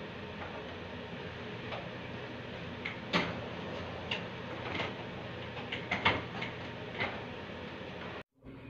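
A hotel room door's latch and handle clicking and knocking, several sharp clicks spread over a few seconds as a person goes out with a suitcase and the door shuts, over a steady room hum. The sound cuts off suddenly near the end.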